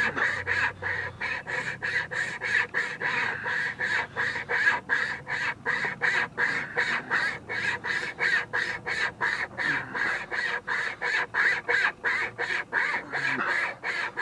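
Small survival-kit wire saw rasping back and forth through a cottonwood branch, in quick, even strokes of about three or four a second.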